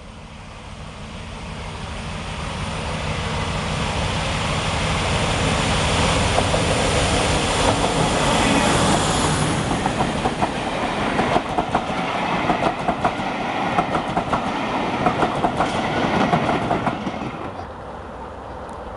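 A diesel-hauled train passing by. Its noise builds to a peak about halfway through, then the wheels clatter over the rail joints in quick clickety-clack beats before the sound drops away near the end.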